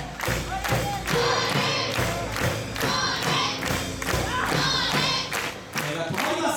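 A large drum and a gong struck in a steady beat aboard the Oranda-bune ship float, with the pullers' group shouts and chanted calls over the beat.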